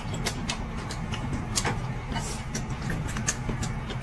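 Eating at a table: irregular sharp clicks of chopsticks against bowls and plates and of chewing, a few a second, over a steady low hum.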